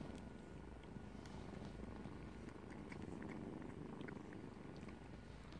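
A cat purring steadily, heard close up, with a few faint small clicks.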